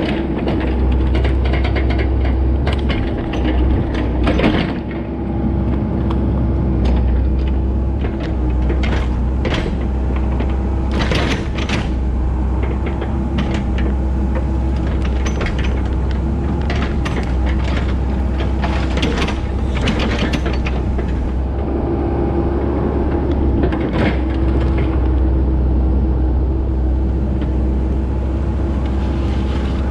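Komatsu PC88MR-8 excavator's diesel engine running steadily, heard from the operator's seat, with irregular clanks and knocks from the machine working.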